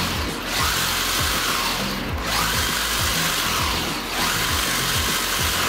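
Electric motor of a DeeRC 300E RC monster truck spinning its wheels freely with the truck held off the ground, the whine rising and falling in pitch about every two seconds as the throttle is worked. Electronic background music plays under it.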